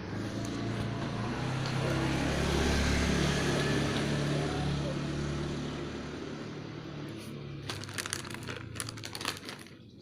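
A motor vehicle's engine hum swells and fades over the first several seconds. It is followed near the end by a quick cluster of sharp crackling clicks.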